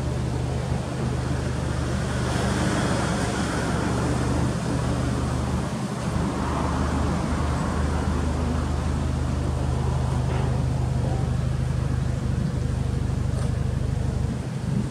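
Subaru Impreza WRX STI's turbocharged flat-four engine idling: a steady low hum through the BLITZ exhaust, with a broad rushing swell about two seconds in and another around six seconds.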